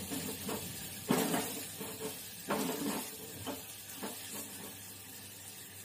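Tomato and ground-spice masala sizzling in hot oil in a metal pot while a steel spoon stirs it, knocking and scraping against the pot several times.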